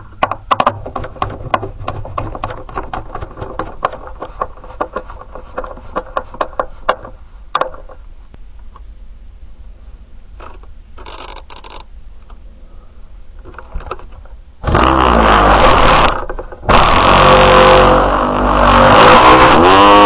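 An O.S. 25 model aircraft engine being started. About fifteen seconds in, after a run of irregular clicks and knocks and two short whirs, the engine fires and runs loud for about a second and a half. It cuts out, catches again a moment later and keeps running, its speed dipping briefly and picking up again.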